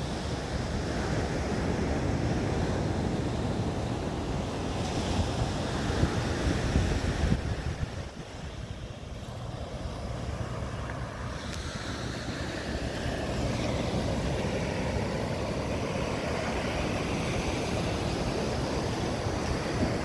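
Ocean surf breaking and washing up the beach, with wind buffeting the microphone. The noise dips briefly about eight seconds in.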